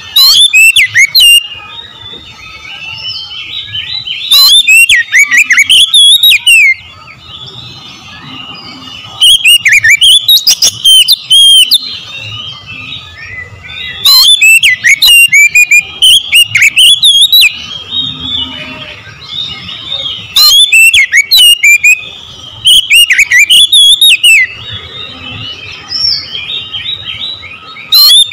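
Oriental magpie-robin singing loudly in repeated bursts of rapid, varied whistles and chattering notes, each burst one to three seconds long and a few seconds apart, with softer twittering between the bursts.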